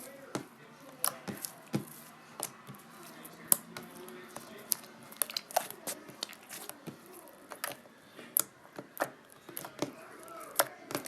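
Slime being squeezed and poked by hand, giving irregular sharp clicks and pops.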